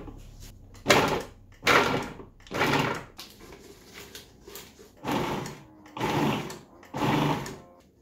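Food processor motor pulsed in six short bursts, about three in quick succession, a pause, then three more, chopping butter and wild garlic leaves.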